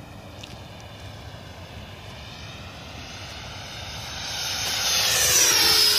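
Freewing F-16 radio-controlled jet's 90 mm electric ducted fan whining on a fly-by: it grows louder over the last few seconds, is loudest about five seconds in, and its pitch drops as it passes.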